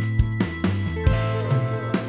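Background music with a drum beat over a bass line and held chords.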